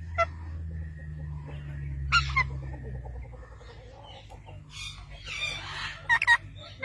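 Parrot calls: a few short, sharp squawks with a harsh, longer squawk about five seconds in, over a low steady hum.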